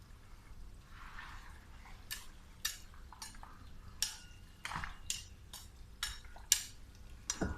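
A dozen or so sharp, irregular metallic clinks and knocks, some ringing briefly, starting about two seconds in.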